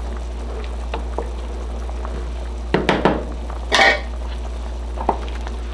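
Wooden spoon stirring beans in a pot of boiling broth, with a couple of sharp knocks and then a louder clatter about three to four seconds in, and one more knock near the end, over a steady low hum.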